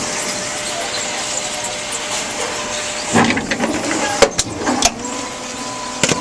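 Tomra T-X2 reverse vending machine running with a steady whirr, then clattering with a few sharp knocks from about three seconds in as a container is taken through the machine.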